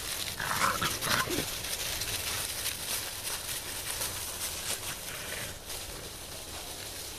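American Bulldog puppy giving a couple of short yips about a second in, over steady crunching and rustling of dry leaves under paws and feet.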